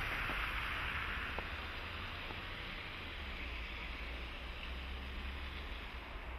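Steady outdoor background noise: an even hiss over a low rumble, with no single clear source.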